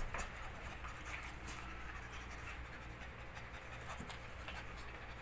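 Belgian shepherd puppy panting softly and steadily.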